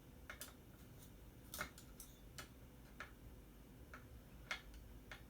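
Faint, irregular light clicks of a screwdriver working at the small screws in an amplifier's metal chassis. The clicks come about a dozen times over a quiet background.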